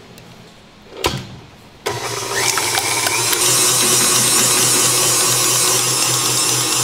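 KitchenAid Artisan stand mixer with a wire whisk starting up and beating egg yolks in a stainless steel bowl. A sharp knock about a second in is followed by the motor starting suddenly. It then runs steadily with a low pulsing hum and a whirring hiss that builds over the next second.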